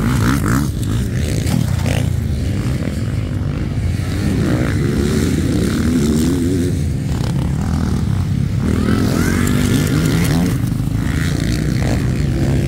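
Motocross dirt bikes racing over the track, their engines revving up and down as they take the jumps, over a steady low rumble.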